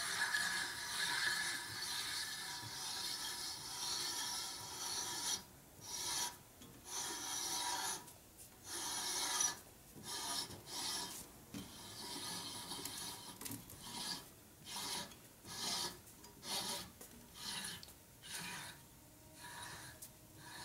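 Reamer scraping metal as it cuts a worn, oval Harley Panhead rocker arm bore back to round. The scraping is continuous at first, then breaks into separate short strokes about once a second.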